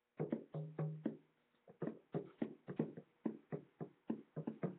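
Hand drum beaten with the palms in a steady rhythm of about three to four beats a second. The beats start suddenly after a moment of quiet, and each has a short low ring.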